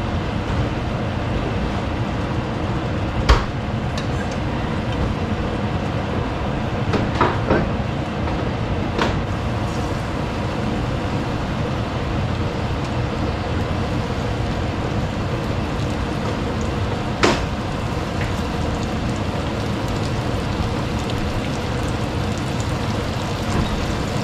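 Hot oil sizzling steadily in a skillet as cornmeal-coated fish fillets deep-fry, with a few sharp clicks of a utensil against the pan, the loudest about 3 s and 17 s in.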